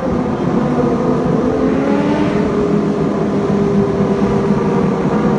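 Motorcycle engine running at steady revs, its pitch drifting slightly up and down over a rumbling exhaust noise.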